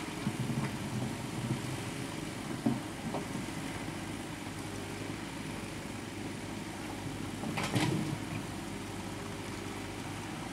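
Hydraulic excavator's diesel engine running steadily while its bucket digs into a pile of soil and rubble. There is a sharp knock under three seconds in, and a short scraping burst near eight seconds as the bucket works the earth and stones.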